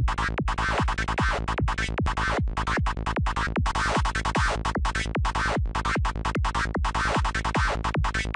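Dark, FM-like psytrance lead synthesised in NI Massive, looping a rolling pattern over a kick drum at 150 BPM, about two and a half kicks a second. The patch is being run through a distortion insert, which gives it a gritty top end.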